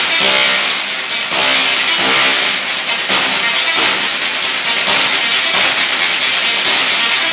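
Musical Tesla coil playing a sequence of notes: its sparks buzz at pitches that change from note to note over a steady crackling hiss.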